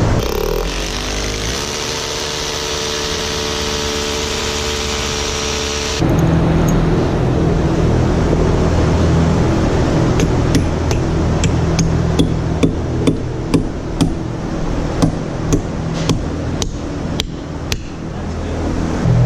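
Hammer drill spinning up and drilling through a rubber cow mat into concrete. A little later comes a run of rapid hammer blows, about three a second, driving nails into the drilled holes to anchor the mat to the concrete floor.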